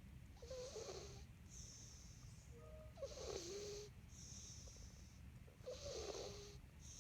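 Sleeping cat snoring softly in a slow, even rhythm: three snoring breaths about two and a half seconds apart, each with a wavering tone and followed by a softer, hissy breath.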